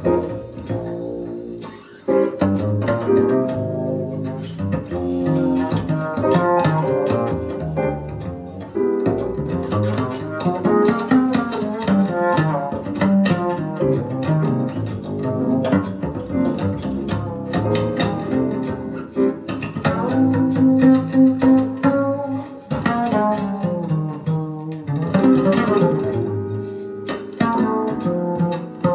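Instrumental music with plucked string notes over a low bass line, played back through a Sansui AU-317 integrated amplifier and Magnat All Ribbon 4 loudspeakers and heard in the room.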